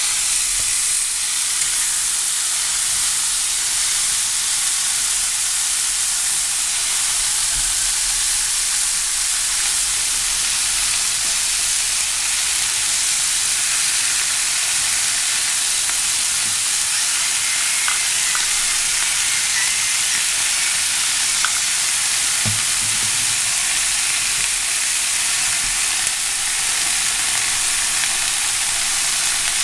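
Thin slices of raw beef, laid beside onions and peppers, sizzling steadily in a hot, oiled cast-iron pan. There is a light knock about two-thirds of the way through.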